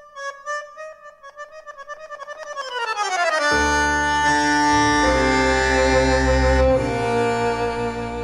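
Argentine tango music led by bandoneon. A solo melodic line slides down in pitch, and about three and a half seconds in the full ensemble enters with a strong bass.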